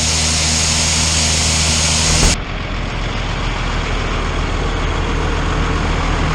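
Heavy farm machinery engine running steadily. About two seconds in it cuts abruptly to a different steady engine drone with less hiss.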